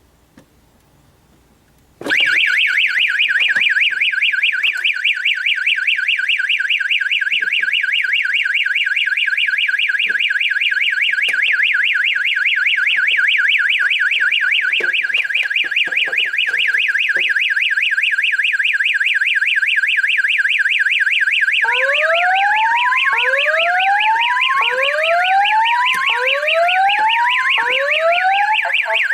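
Fire alarm system going into alarm from a pulled manual pull station: about two seconds in, a loud electronic alarm tone starts, warbling in a fast, even pulse. About three quarters of the way through, a second alarm tone joins it, a slow whoop that sweeps upward and repeats about every one and a half seconds.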